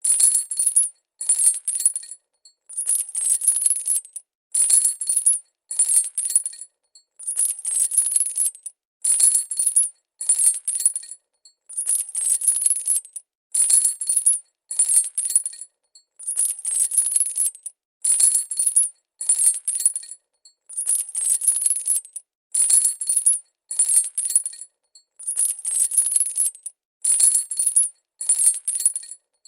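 Metal chain rattling in repeated short shakes, each lasting about half a second to a second, with brief silent gaps between them.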